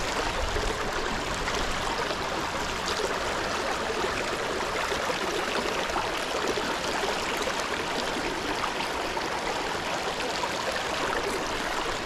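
Small mountain creek running steadily over rocks and shallow riffles.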